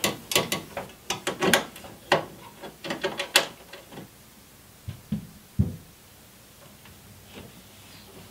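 Quick, irregular metal clicks and clinks for the first few seconds, then a few dull knocks about five seconds in. An aluminium coolant expansion tank with brass fittings and its mounting bracket are being handled and fitted by hand in an engine bay.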